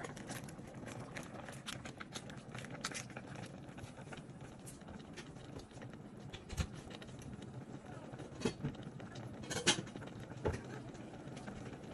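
Pot of pork soup boiling: a steady bubbling hiss with scattered light clicks and taps, a few sharper ones in the second half.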